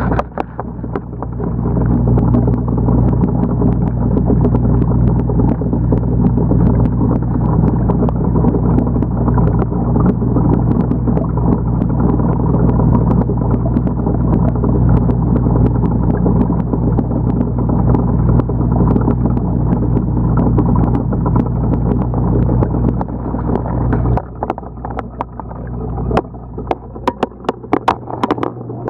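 Steady electric hum of the aquarium's pump, heard muffled through a camera submerged in the tank. The hum drops out about 24 seconds in, leaving a few scattered knocks near the end.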